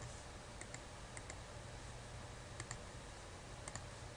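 Faint computer mouse button clicks, in close pairs about five times, over a low steady hum.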